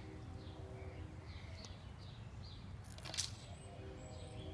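Quiet outdoor background: a small bird chirping over and over, a couple of short chirps a second, over a steady low rumble. A brief burst of noise about three seconds in.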